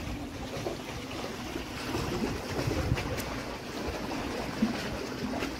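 Small waves lapping and splashing against the rocks of a breakwater, with a few faint clicks.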